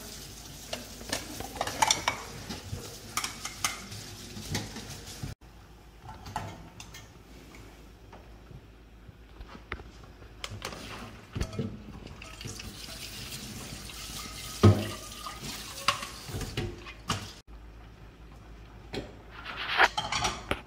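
Kitchen work: a tap runs into a sink while vegetables are rinsed, then a spatula and utensils clink and scrape against a frying pan during stir-frying, with scattered clatter of bowls and dishes.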